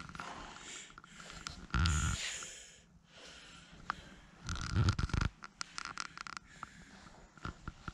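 Steel storage cabinet doors being handled and swung open: two rough clunking bursts, about two seconds in and about five seconds in. After the second comes a run of sharp metal clicks and knocks, with scraping in between.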